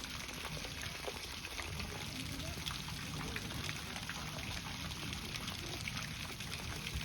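Steady pouring, trickling water with a spattering of small drips and splashes.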